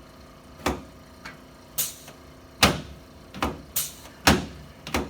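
A series of about eight sharp knocks and clacks, unevenly spaced, two or three of them with a brief rustling smear.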